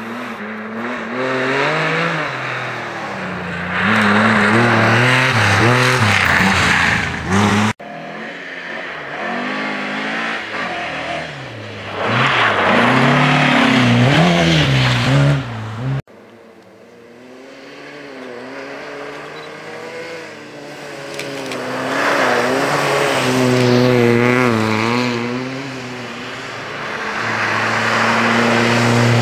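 Historic rally cars on a snowy special stage passing one after another, each engine building from a distance to full throttle as the car goes by, its pitch rising and dipping with throttle lifts and gear changes. Among them are an Opel Manta and a Mk2 Ford Escort.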